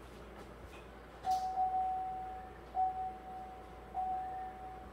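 Truck's dashboard warning chime sounding three times, a steady single-pitch tone repeating about every 1.3 seconds from about a second in, while the key is cycled during the immobilizer relearn.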